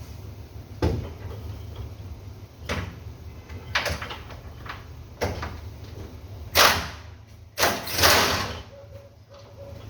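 Workshop work on a car: a sharp knock, then a series of short scraping and hissing bursts over a steady low hum, the two loudest hisses coming near the end.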